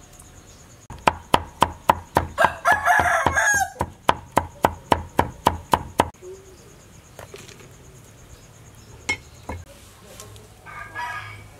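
A knife chopping on a wooden chopping board, quick even chops at about four a second for roughly five seconds. Partway through, a rooster crows once for about a second. A couple of single knocks follow later.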